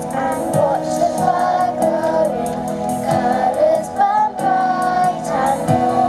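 A children's choir singing a song in unison, with steady instrumental backing and a regular beat.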